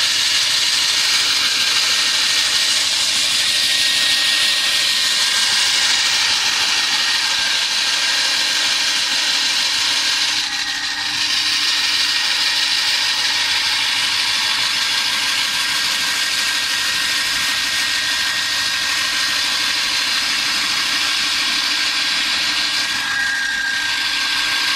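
Hilti DD 350 diamond core drill running steadily, its large core bit spinning, with a steady high tone over the motor noise. The sound dips briefly about ten seconds in and again near the end.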